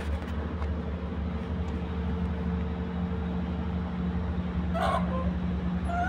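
Steady low hum in the background, with one short high squeal from the wrestling kitten and puppy about five seconds in.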